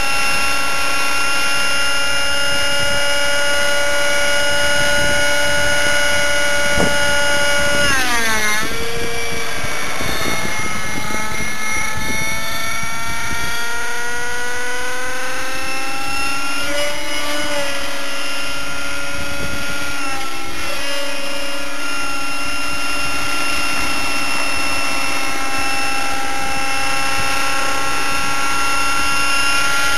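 Align T-Rex 600 Nitro Pro radio-controlled helicopter in flight, its O.S. 50 Hyper nitro engine with a Hatori performance muffler running steadily along with the rotor. The pitch drops sharply about eight seconds in and climbs back over the next few seconds, dips briefly twice more, then holds steady.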